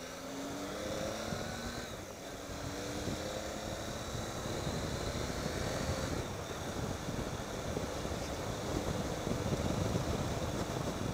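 Triumph Tiger 800 XCx three-cylinder motorcycle engine accelerating up a climb, rising in pitch through the gears with upshifts about two and six seconds in. It then runs on at speed amid growing wind noise.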